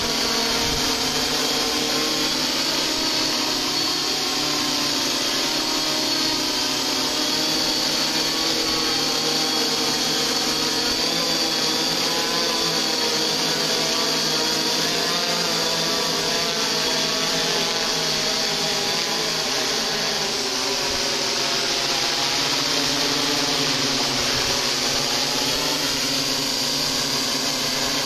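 XAircraft X650 V8 multirotor's eight electric motors and coaxial propellers running steadily as it flies overhead, a dense buzzing whine made of several tones whose pitches waver slightly as the motor speeds adjust.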